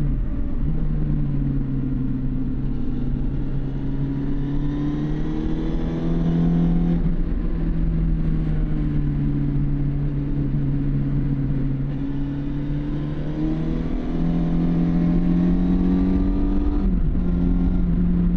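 Suzuki GSX750 Inazuma's inline-four engine with stock exhaust, heard from the rider's seat while under way. The engine note climbs as the bike pulls and drops at upshifts: briefly near the start, about seven seconds in, and again near the end. Wind and road rush sit underneath.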